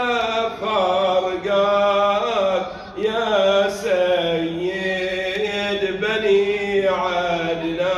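A man's voice chanting a Shia elegy (noha) into a microphone, holding long, drawn-out notes that waver and bend in pitch, with a steady low tone underneath.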